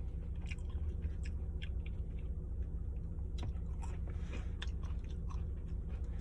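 A person chewing food close to the microphone, with scattered short crunches and mouth clicks over a steady low hum.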